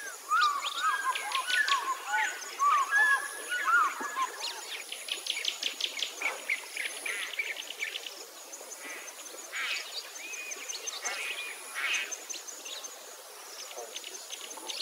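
Songbirds chirping and singing, with quick warbling phrases in the first few seconds and scattered chirps after.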